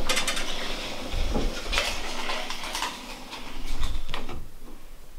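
Clattering and clinking of hard objects, with several sharp knocks spread over the first four seconds and quieter after.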